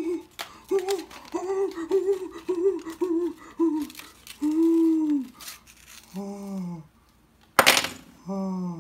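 A man hums a quick string of short notes, then a few longer drawn-out hums that sag or fall in pitch. A loud, brief rustling burst comes about three-quarters of the way through.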